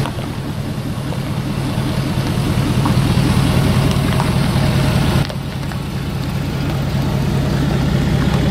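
Ford F-250 Super Duty pickup truck driving slowly past at walking pace, its engine running steadily with an even, low pulsing note.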